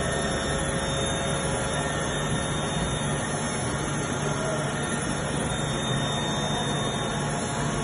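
Bridgeport VMC 600/22 vertical machining centre running: a steady mechanical hum and whine with several steady tones.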